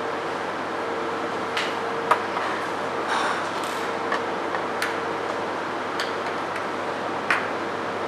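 A few small metallic clicks and taps with a brief rattling scrape partway through, as a screw is taken out of a radio's circuit board with a screwdriver, over steady room noise.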